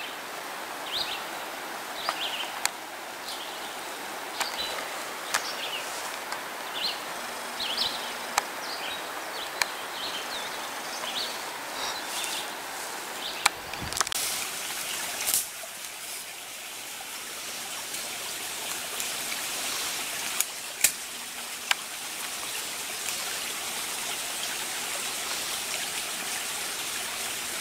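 Small birds give repeated short, high chirps over a steady outdoor hiss. After a sudden change about halfway through, a shallow mountain stream runs steadily. A few sharp clicks stand out above both.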